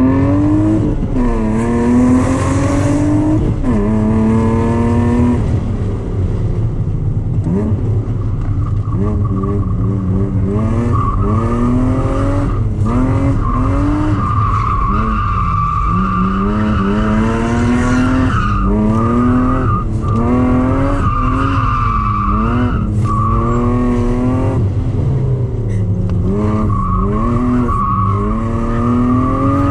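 Car engine heard from inside the cabin, revving up and dropping back again and again as the car is driven hard around a course, with tyres squealing in long stretches as the car slides through the corners.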